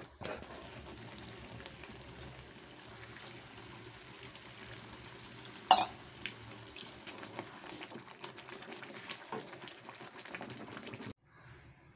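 Thick paneer gravy simmering and sizzling in a steel kadhai, with a spoon stirring and lightly clinking against the pan. There is one sharp metal clink about halfway through. The sound cuts off abruptly near the end.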